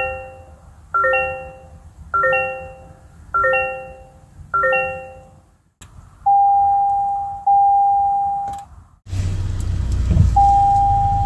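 Toyota dashboard warning chimes. First the seatbelt reminder: a bright multi-tone ding that fades, five times about once a second. Then the accessory-mode alert, a steady beep lasting about two seconds, and near the end, over a low rumble, a single steady beep for the auto turn-off notification.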